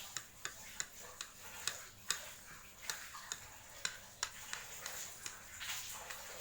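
Close-up mouth sounds of chewing fried noodles: a run of short, wet smacking clicks, about two or three a second.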